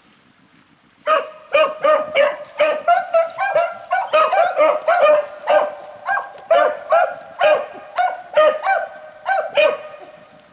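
A pack of beagles baying in quick, overlapping barks, about three a second, as hounds give voice when running a rabbit's trail. The baying starts about a second in and stops shortly before the end.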